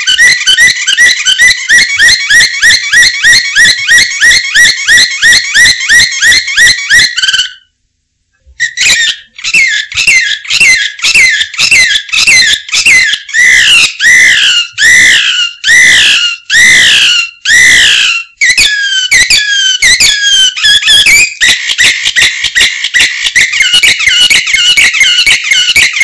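Domestic canary singing: a fast trill of rapidly repeated high notes, a short break about seven and a half seconds in, then a slower run of swooping, falling notes, and the fast trill returning near the end.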